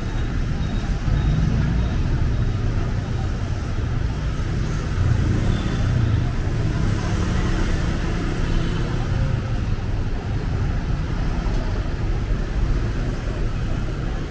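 City street traffic: cars and motorbikes passing on a wet road, a steady low rumble of engines and tyres.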